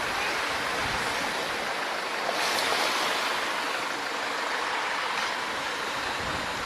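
Steady road traffic noise, with a vehicle passing about two and a half seconds in.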